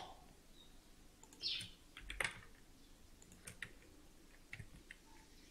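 Faint, scattered computer keyboard and mouse clicks, a few isolated clicks a second or so apart. A short high chirp sounds about a second and a half in.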